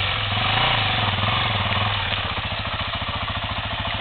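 Enduro motorcycle engine idling with an even pulsing beat. The revs rise briefly about half a second in, then settle back to idle.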